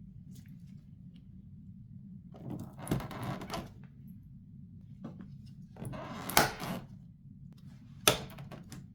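Handling noise as PC parts or their packaging are moved about: two stretches of rustling and clatter, then a short sharp knock near the end, over a low steady hum.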